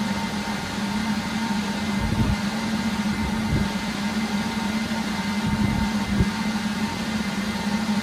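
Steady hum and whine of network equipment cooling fans running, with a few dull low knocks from handling the gear.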